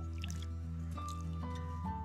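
Background music: a slow melody of held notes stepping downward over a steady low bass.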